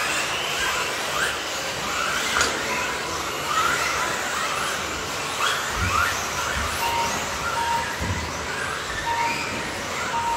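Radio-controlled electric buggies racing, their motors giving repeated short rising whines as they accelerate, with a few dull thumps. About two-thirds of the way in, a string of short electronic beeps begins, roughly one a second.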